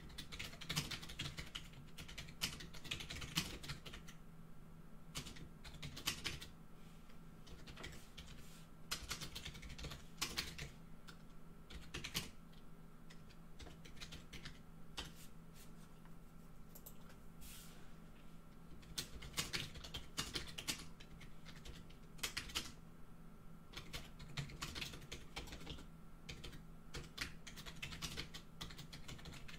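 Typing on a computer keyboard: bursts of quick key clicks with short pauses between them, over a faint steady hum.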